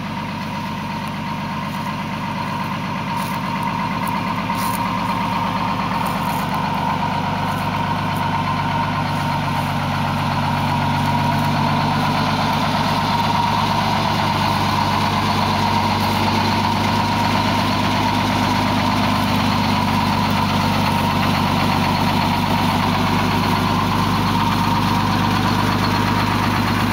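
1975 American LaFrance fire engine's engine idling steadily, growing louder over the first dozen seconds, then holding even.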